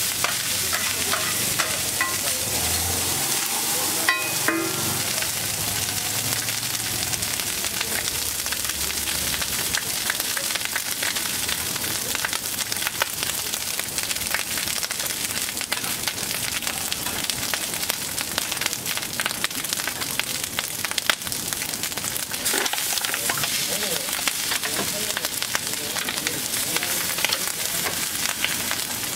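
Rice, egg and masala sizzling on a large flat metal griddle, with a metal spatula scraping and tapping across the griddle as the pulao is stirred and chopped: a steady hiss dotted with many small clicks.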